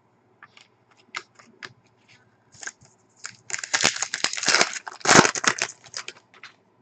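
Hockey trading cards and their packaging being handled: a few light ticks and slides, then about three and a half seconds in a dense, crinkly rustle lasting around two seconds, loudest near the end of it.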